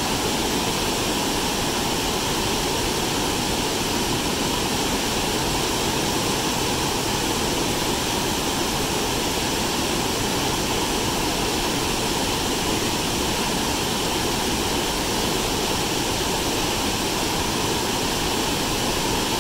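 Steady rush of water from a large, high waterfall in heavy flow, plunging over a wide rock ledge into a gorge.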